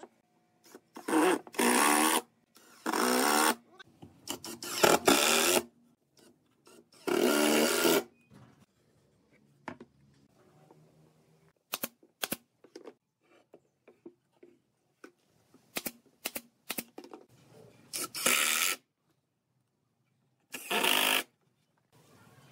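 Workshop power tools: a cordless power driver runs in several short bursts of about half a second to a second, driving screws into pine boards, and a pneumatic brad nailer fires a series of sharp single shots about halfway through.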